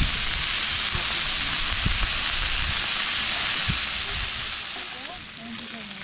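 Meat sizzling in a hot pan, a dense frying hiss that dies down about four to five seconds in.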